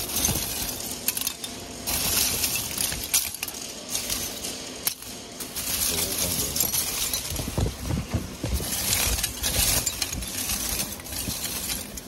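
Pieces of coconut shell charcoal clinking and rattling against each other as a hand stirs and scoops through a sack of them, a bright glassy chink coming in several spells of clatter with short pauses between.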